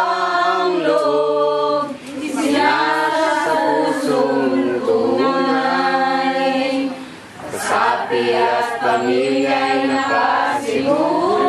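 A group of women singing together without accompaniment, in long held phrases with short breaks about two seconds and seven seconds in.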